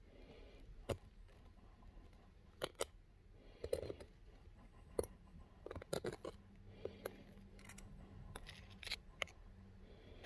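Handling noise close to the microphone: irregular sharp clicks and short scrapes as the phone is moved against skin, with a faint steady hum joining about six seconds in.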